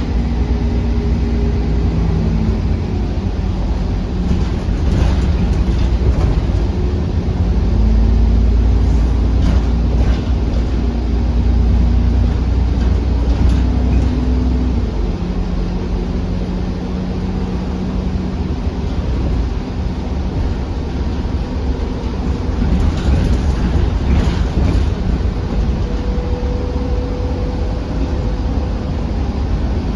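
A double-decker bus heard from inside while it drives: a steady low engine rumble, heaviest for a stretch in the middle, with drivetrain whine tones that step up and down in pitch and occasional short rattles.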